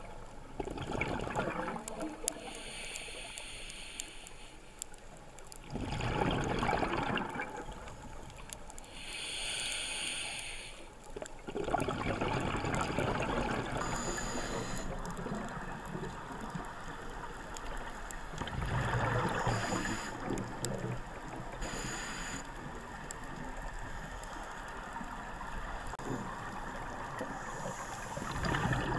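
Scuba breathing through a regulator, heard underwater: a hissing inhalation alternates with a broad burst of exhaled bubbles, a few seconds apart.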